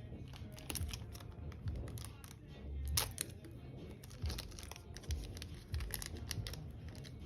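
Trading cards being handled and flipped through, with irregular papery rustles and light clicks, the loudest about three seconds in.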